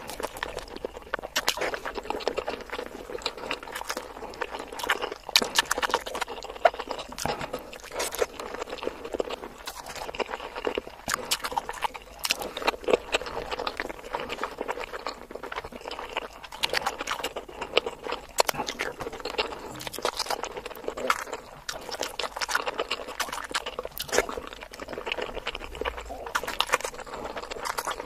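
Close-miked eating of whole boiled eggs in masala sauce: soft wet biting and chewing with many quick sticky mouth clicks and smacks, going on without a break.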